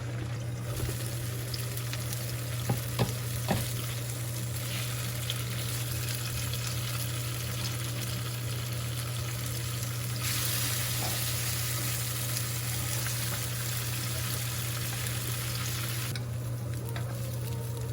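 Food sizzling in a frying pan as it is stirred, with a few sharp knocks of the utensil against the pan about three seconds in. The sizzle grows louder for several seconds past the middle, over a steady low hum.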